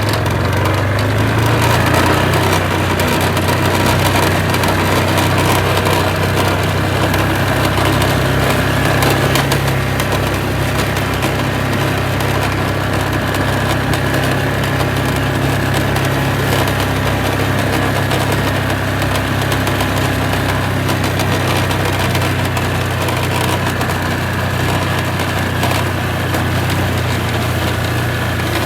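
Small vehicle engine running steadily as it is driven, with a steady low hum under it.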